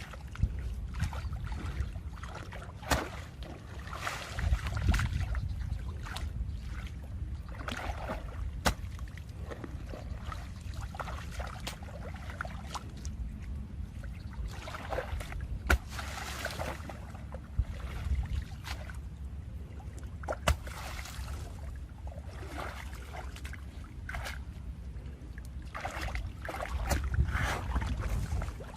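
Water splashing and sloshing in short irregular bursts, with wind rumbling on the microphone underneath.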